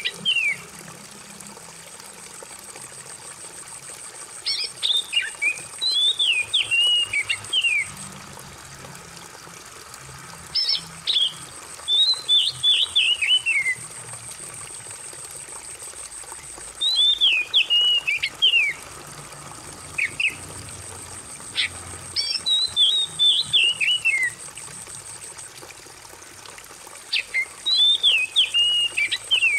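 Oriental magpie-robin singing short phrases of quick whistled notes that slide downward, one phrase every five or six seconds, over steady trickling water.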